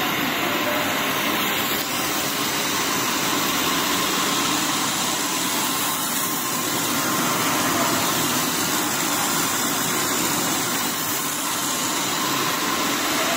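Steady, even machine noise from a running SLT70H food extruder line making puffed corn-ring snacks, its motors running continuously.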